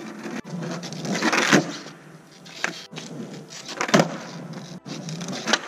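Skateboard's wheels rolling on concrete, with sharp clacks as the board spins under the skater and he lands back on the deck, about a second and a half in and again about four seconds in, during no-pop fakie shove-its.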